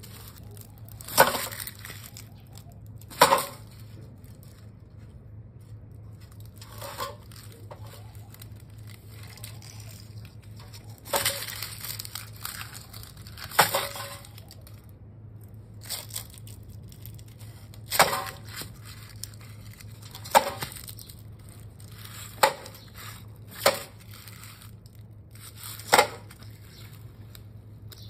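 A tortoise's shell knocking against a rusty metal stove pipe, about eleven sharp clacks spaced irregularly one to four seconds apart, as the male tortoise tries to mate with the pipe. A low steady hum sits underneath.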